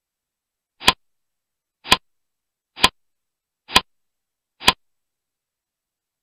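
Five sharp clicks about one second apart, the click sound effect of the interactive e-book as a check mark is ticked into each box.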